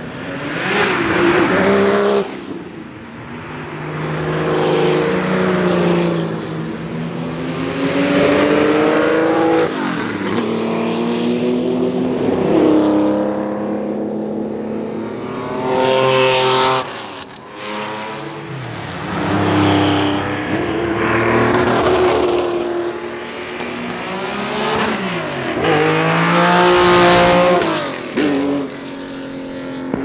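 Porsche 911-based race cars, including 935s, passing one after another. Their flat-six engines rise in pitch under acceleration and fall as each car goes by, swelling and fading several times over.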